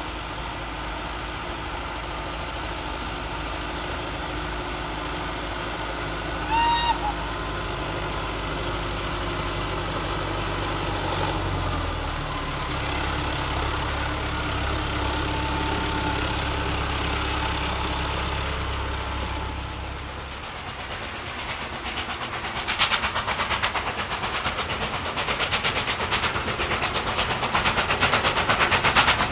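Steam-hauled train running, with a short whistle blast about six seconds in. From about two-thirds of the way through, a steam locomotive working hard up a 1 in 60 gradient, its rapid, even exhaust beats growing louder.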